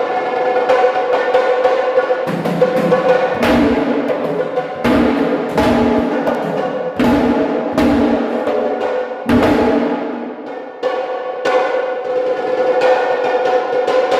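Loud live drumming: heavy drum strikes at an uneven pace, each with a ringing tail, over a steady held tone.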